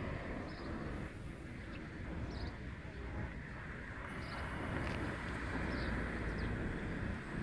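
A car driving past on the street, its tyre and engine noise building to a peak about five to six seconds in, over a steady low traffic rumble. A few short high chirps sound now and then.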